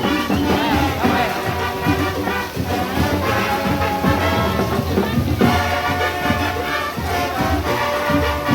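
Band music led by brass, trumpets and trombones, playing at full volume over a strong, steady beat.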